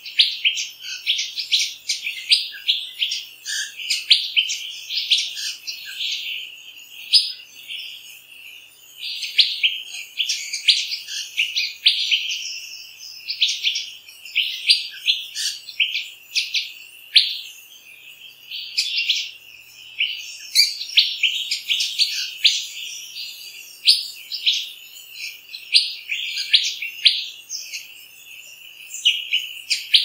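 A chorus of rainforest birds chirping and whistling, many short high calls overlapping in quick succession without a break.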